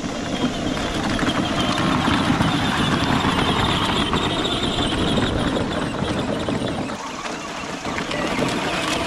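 Battery-powered Power Wheels Gator ride-on toy driving through a mud puddle: its electric drive motors and gearboxes run steadily while the wheels churn through mud and water. It eases off briefly about seven seconds in.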